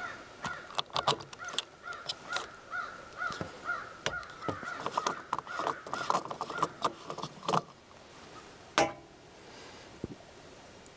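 The plastic fuel cap of a Bobcat E55 mini excavator being unscrewed: a run of clicks with a wavering squeak over them for several seconds. Then one sharp knock, a little under nine seconds in, as the cap is set down.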